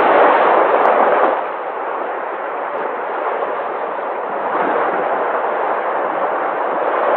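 Sea waves breaking and washing in a steady rush of surf, one wave swelling loudest over the first second or so and then easing off.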